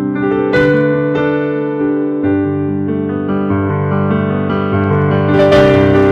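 Instrumental keyboard music: slow, held chords over a bass line that steps to a new note every second or so, with a few brief bright accents.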